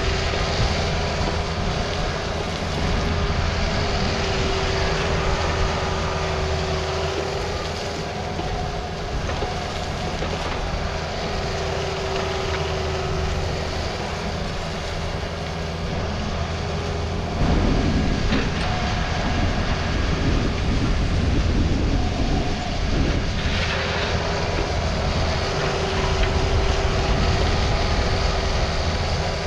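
Takeuchi TB260 compact excavator's diesel engine running steadily with a high steady whine over it, while its bucket scrapes and spreads gravel; the scraping gets louder a little over halfway through.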